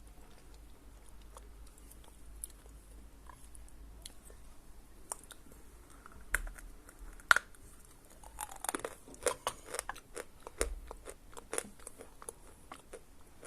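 A lump of Khrapovsky natural chalk being bitten and crunched between the teeth: faint scattered clicks at first, a couple of sharp cracks about six and seven seconds in, then a dense run of crunching. The chalk is dense and hard, but pieces break off.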